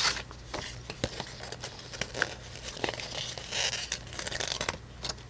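Paper sticker sheets being handled and stickers peeled from their backing: soft crinkles and rustles with scattered light taps, and a longer rustle about three and a half seconds in.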